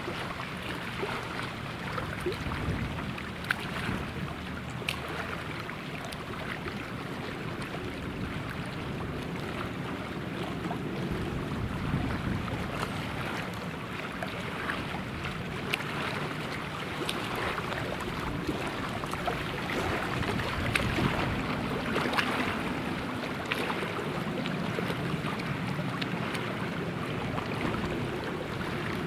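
Distant Air Tractor AT-802 Fire Boss turboprop droning steadily as the floatplane approaches head-on, mixed with wind noise on the microphone.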